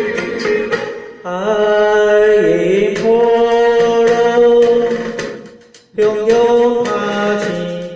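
Man singing a Taiwanese Hokkien ballad over a karaoke backing track. About a second in he holds one long note that steps down in pitch, then fades out, and the accompaniment comes back in sharply.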